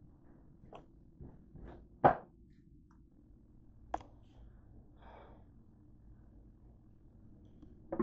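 Kitchen handling noises over a low steady hum: a few knocks and clicks, the loudest about two seconds in and a sharp click about four seconds in, then a knock at the very end as a glass pot lid is lifted off a pot.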